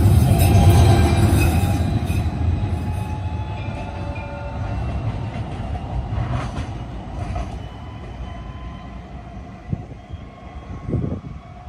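FGV S-5000 light-rail tram running close by, a low rumble with faint electric whines over it, fading steadily as it moves away.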